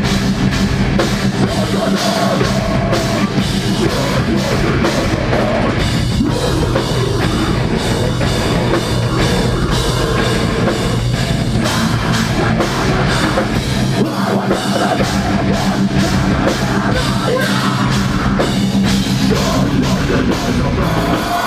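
Deathcore band playing live and loud: heavy distorted electric guitars and bass over a dense, fast drum kit.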